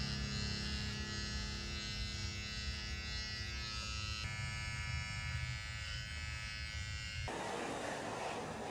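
Electric hair clippers buzzing steadily as they cut hair close to the head. The buzz cuts off suddenly about seven seconds in, giving way to a steady hiss.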